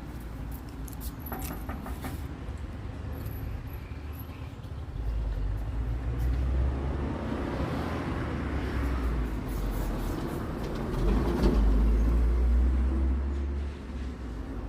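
Street traffic with a deep engine rumble that swells as a vehicle passes close by, loudest near the end, then drops off suddenly; a few light clicks in the first couple of seconds.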